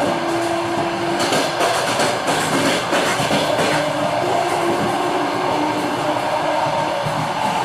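Train running along the track with a steady howling whine, and the wheelsets knocking over rail joints in a quick run of clacks between about one and four seconds in.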